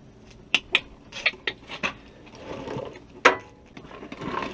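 Crescent wrench clinking on the nut of a new four-wheel-drive actuator solenoid as it is tightened into the front differential: a run of sharp metal clicks with softer scraping between them, the loudest click a little past three seconds in.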